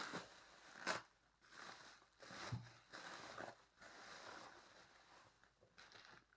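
Faint rustling and crinkling of bubble wrap and plastic bags being unwrapped by hand, in short separate rustles with a sharper crackle about a second in.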